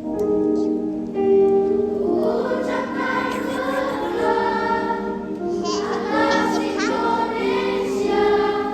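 Children's choir singing together, holding sustained notes with the pitch changing from note to note.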